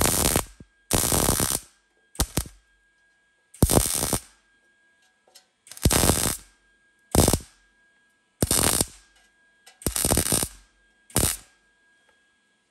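Wire-feed welder laying a series of quick tack welds on thin sheet steel: about nine short bursts of arc, each under a second, with silence between them.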